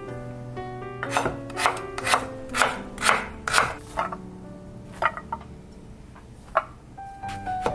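Chopped vegetables being swept off a kitchen knife's blade by hand into a container: short rubbing scrapes about twice a second, thinning out in the second half.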